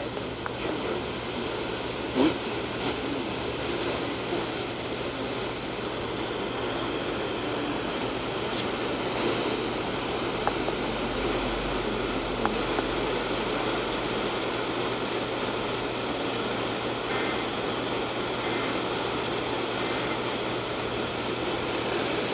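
Radio static: the steady hiss of a weak or empty channel on a software-defined radio receiver, with a steady low hum underneath and a few faint clicks.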